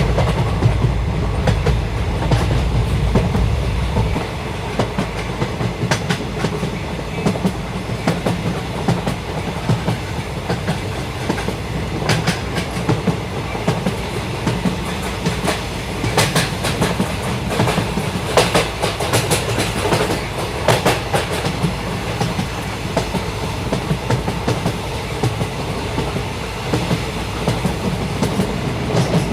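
Passenger train coach running along the track: a steady rolling rumble of wheels on rail, with sharp clacks from rail joints at uneven spacing, thicker around the middle.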